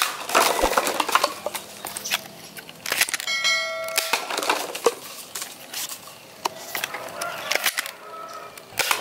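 A Nerf Mega Talon blaster firing foam darts, with sharp clicks and knocks as darts hit plastic cups and the cups clatter down off a stacked pyramid. A short bell-like chime rings about three seconds in.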